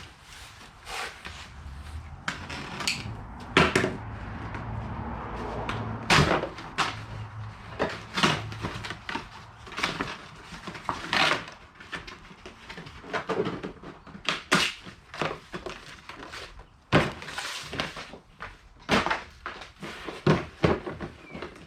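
Packaging and a hard plastic carrying case being opened and handled: a long run of irregular knocks, clicks and thunks with rustling between them.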